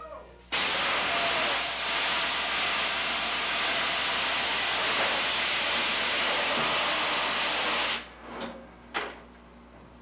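A loud, steady hiss of rushing air or gas inside an 8-inch gun turret. It starts abruptly and cuts off about eight seconds in, followed by two short metallic clanks from the gun's breech and loading gear.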